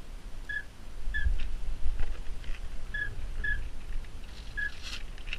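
A retriever dog whining in short, high squeaks, about six of them spread a second or so apart, restless to go retrieve a downed duck. Low wind rumble on the microphone underneath, with a brief rustle near the end.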